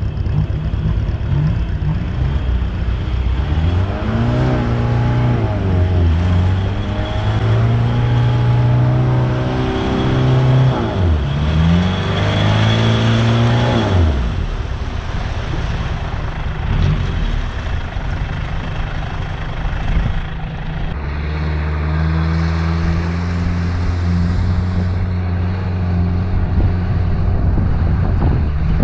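Toyota LN167 Hilux's 5L four-cylinder diesel engine driving through shallow floodwater, its pitch climbing and falling several times through the first half as it revs, then settling to a steadier run.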